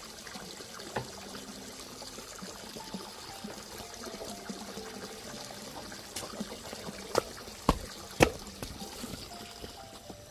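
Water trickling steadily, with a few sharp knocks between about seven and eight and a half seconds in, the last of them the loudest.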